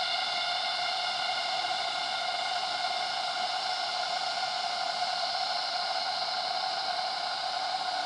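Cicadas in tropical forest droning in a steady, even chorus: several held pitches over a hiss. This is the standard cicada background heard between the bursts of a louder, stranger cicada song.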